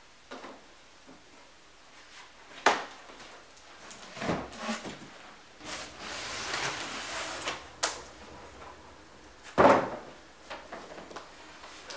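Handling of a large cardboard computer box: a few sharp knocks, the loudest a little past two-thirds of the way through, with scraping and rustling in between.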